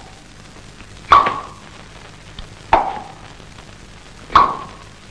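Three loud, sharp thuds, evenly spaced about a second and a half apart, standing for the slow, heavy footsteps of a shadow walking in a horror story.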